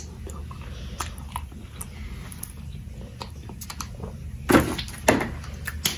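Plastic milkshake cup handled and sipped through a straw: scattered small clicks and rustles, then two short, louder noisy sounds near the end, over a steady low room hum.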